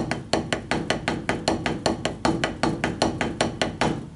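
Wooden drumsticks playing single paradiddles (R L R R, L R L L) on a drum practice pad at a quick, even tempo of about seven strokes a second, some strokes accented. The playing stops just before the end.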